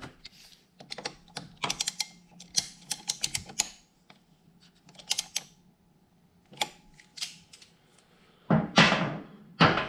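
Quick irregular metallic clicks and taps as a hex bit tightens the pad retaining pin in a Brembo front brake caliper to 6 Nm, followed by two louder, longer scrapes near the end.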